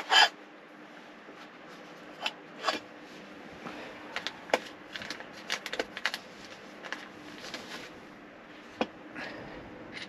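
Parts of a small wind generator being unpacked by hand from a hard carry case: plastic wrapping rustling and metal and plastic parts clicking and knocking at irregular moments, with the loudest rustle right at the start.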